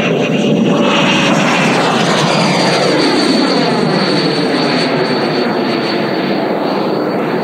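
JETFAN-130 electric ducted fan of a large RC jet model running hard in flight: a loud, steady rushing whine, its pitch falling through the middle as the jet passes, with a thin high fan tone coming in about two seconds in.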